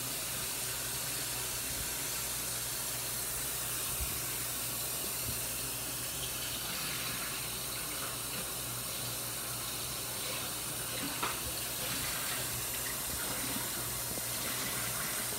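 Steady rushing hiss like running water, with a faint click about four seconds in and another about eleven seconds in.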